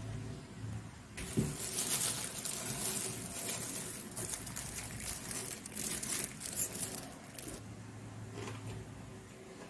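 Dense, irregular crackling and crinkling as a crisp, breadcrumb-coated fried potato ball is broken open by hand. The crackling fades out about two seconds before the end.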